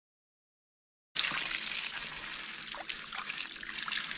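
Silence, then about a second in water from a garden hose cuts in, running and splashing over a gutted cutthroat trout as it is rinsed out.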